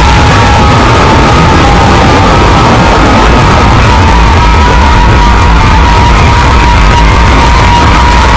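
Very loud, dense music mixed at full volume, with a steady tone held through it.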